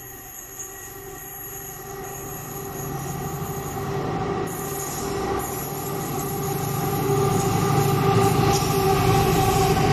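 Colas Rail Class 70 diesel locomotive approaching and passing at the head of a train of tank wagons. A low engine rumble grows steadily louder, with a steady whine over it.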